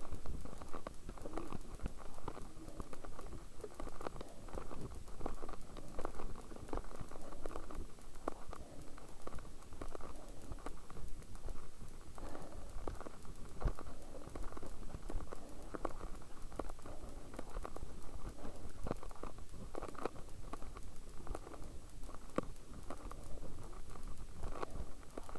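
Mountain bike riding over a rocky gravel trail, heard through a helmet-mounted camera: a continuous, muffled clatter of tyres on loose stones with frequent sharp knocks and rattles from the jolting bike and camera mount.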